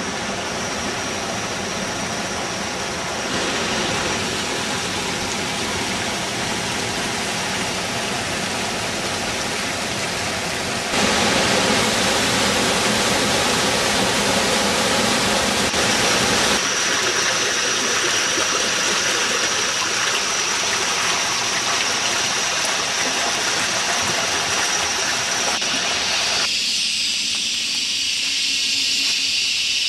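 Waterfall and stream water rushing steadily, its loudness and tone changing abruptly several times, with a thin steady high tone above it in places.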